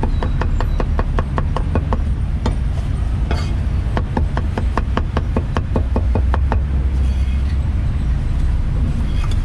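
Cleaver chopping cooked pork offal on a thick round wooden chopping board: quick even strokes about five a second, in two runs, stopping about two-thirds of the way in. A steady low rumble of street traffic runs underneath.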